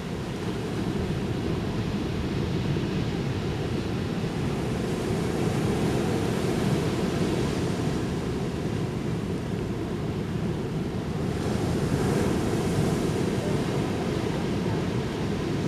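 Ocean surf washing continuously onto a beach, swelling louder about six seconds in and again near twelve seconds.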